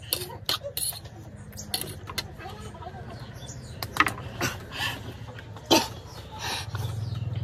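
People sniffing, taking sharp breaths and coughing from the burn of very spicy noodles, with a few short clicks of a fork on a plate near the start, over a low steady hum.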